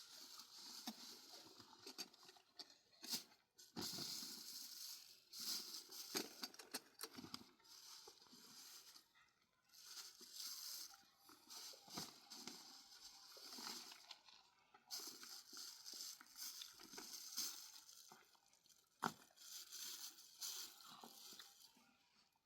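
People eating grilled fish up close: irregular quiet chewing, tearing and crunching, with light crinkling and a few sharp clicks.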